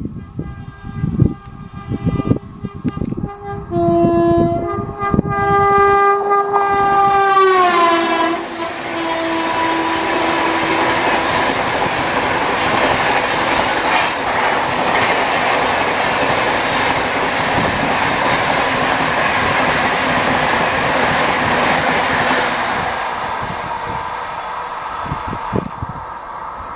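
Jan Shatabdi Express locomotive's horn sounding in long, high blasts that change pitch a few times, then gliding down in pitch about eight seconds in as the locomotive passes. The coaches follow with steady wheel-on-rail noise that fades away near the end.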